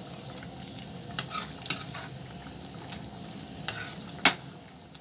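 Thick spice masala sizzling in a metal kadai as a spoon stirs it, with four sharp clinks of the spoon against the pan, the loudest near the end.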